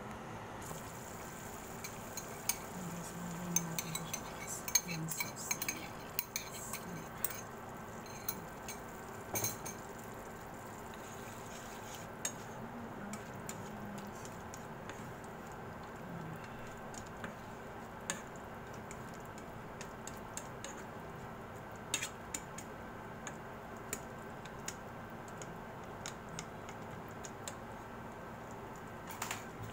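A cooking utensil clinking and scraping against a frying pan of simmering vegetables, with scattered sharp knocks that come thickest in the first ten seconds and sparser after, over a steady background hum.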